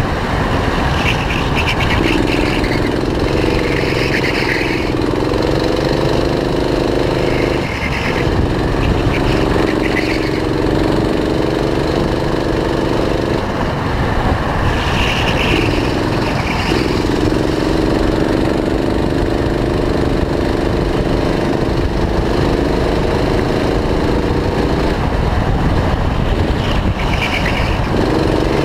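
Go-kart engine heard from on board, its pitch climbing along each straight and dropping away several times as the driver lifts off for the corners. Low rumble and wind run underneath.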